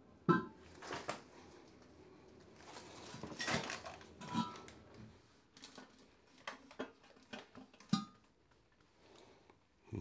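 Porcelain toilet bowl being lifted, carried and lowered toward the floor flange: scattered knocks and light scrapes of the ceramic, the sharpest just after the start, with rustling movement in between.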